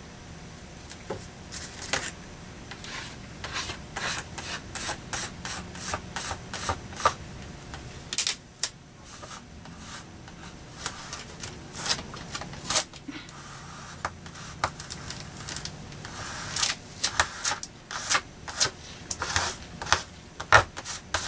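A plastic card scraped in short, repeated strokes over packing tape laid on foam board, smoothing the tape flat and pushing out air bubbles. The strokes come irregularly and grow quicker and more frequent over the last few seconds.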